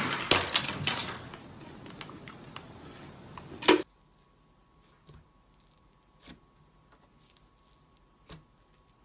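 A sharp knock followed by about a second of crackling and clattering, and another loud knock about three and a half seconds in, as a glossy cherry-shaped object is struck. Then, after a sudden cut, a few faint soft squishes of fingers pressing thick slime in a jar.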